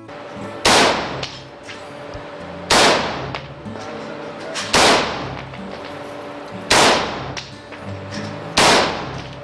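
Five single shots from a JP Enterprises AR-15-type rifle in .223 Remington fitted with a large muzzle brake, fired about two seconds apart, each ringing briefly in an indoor range. Background music plays underneath.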